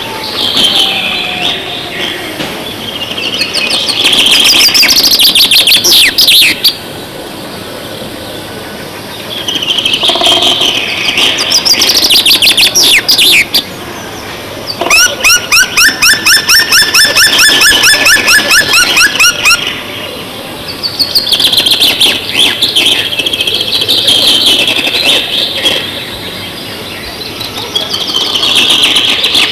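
Songbirds singing: bursts of high chirping and warbling song separated by short pauses, with a long fast trill of evenly repeated notes near the middle.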